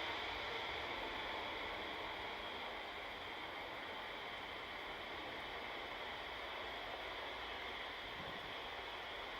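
Airbus A330 jet engines running, a steady rushing roar with a high whine, easing a little about three seconds in.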